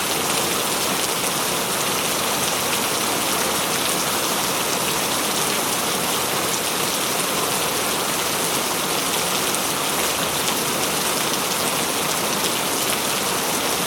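Heavy rain falling and pattering on a surface, a dense, steady hiss of many drops that holds even throughout.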